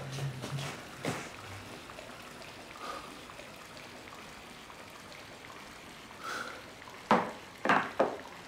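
Faint water movement in a filled bathtub. A short noisy sound comes about a second in, and near the end three short, louder ones follow close together as a glass of water is handled at the tub's edge.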